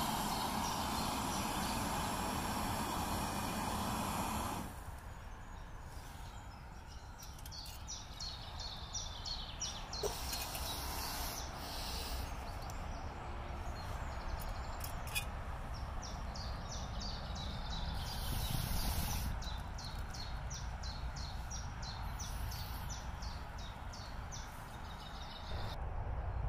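Portable gas canister stove burner hissing steadily under a pot of water, cutting off suddenly about four and a half seconds in. After that, birds chirp repeatedly over a low, steady rumble of motorway traffic.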